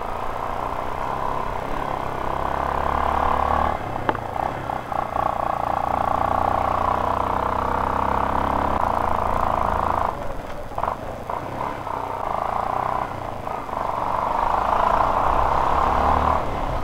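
A vehicle's engine running steadily on a rough road, under a continuous loud rushing noise, with a few brief knocks about four seconds in and again around ten to eleven seconds.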